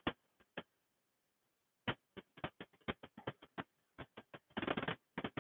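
Faint, irregular clicking and ticking, a few clicks a second from about two seconds in, with a denser run of clicks a little before the end.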